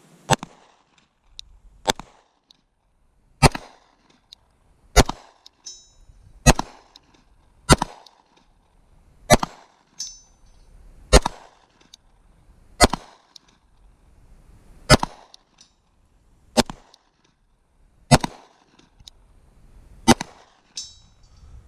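Glock 19 Gen 5 9mm pistol firing thirteen shots at a slow, steady pace, about one every second and a half, each shot trailing a short echo.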